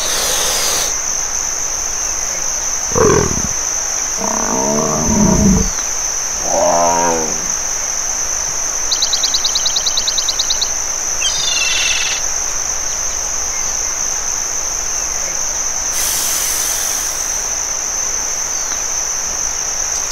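Animal roars and growls: three calls in the first seven seconds, the first dropping in pitch. About nine seconds in comes a fast rattling chatter, then brief chirps, all over a steady high-pitched whine.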